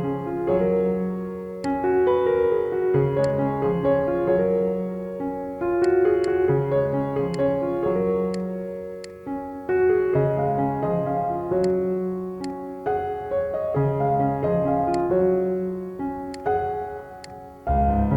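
Instrumental background music: a keyboard melody of sustained, layered notes changing every second or so, with faint light ticks, and a deeper bass coming in near the end.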